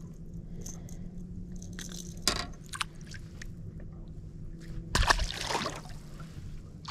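A speckled trout released back into the water from a boat's side, with a splash about five seconds in, over a low steady hum. A short sharp knock comes a couple of seconds earlier.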